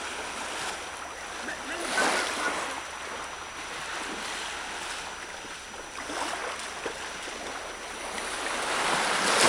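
Sea water washing and splashing in small waves, swelling louder about two seconds in and again near the end.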